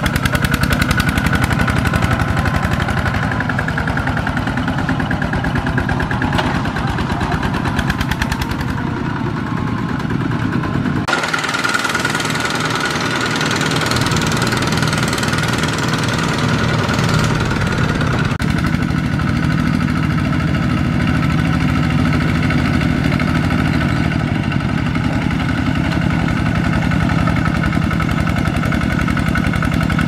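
Single-cylinder diesel engines of two-wheel walking tractors running hard under load, hauling trailers of rice sacks through a harvested paddy field, with a fast, even firing beat. The engine sound changes abruptly twice, about a third of the way in and again just past halfway.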